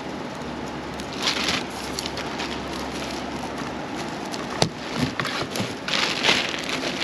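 Black plastic trash bag rustling and crinkling in two bursts as hands dig through it, with the wicker case being handled and a single sharp click partway through, over a steady background hiss.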